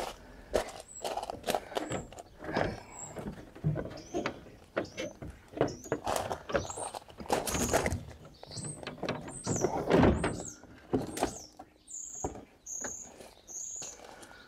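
VW T4 plastic front bumper being worked loose and slid forward off its plastic mounting brackets: a busy run of knocks, clicks, scraping and squeaking plastic, loudest about ten seconds in.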